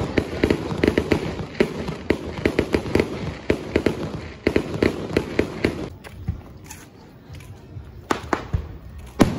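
Aerial fireworks at the finale of a display: a rapid run of sharp bangs and crackles, several a second, thinning after about six seconds to a few scattered bangs, with a last loud one near the end.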